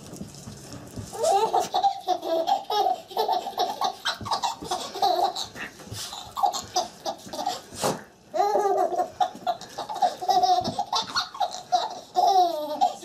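A baby laughing hard in repeated high pitched bursts. The laughter starts about a second in and goes on to the end, with a brief pause a little past the middle.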